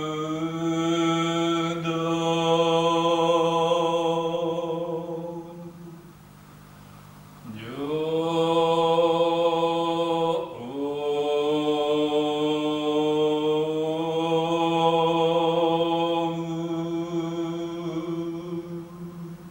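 Jōdō Shinshū Buddhist liturgical chanting: a priest's voice sings long held notes on a slow, melismatic line. It breaks off about six seconds in and comes back with a rising slide, over a steady low tone.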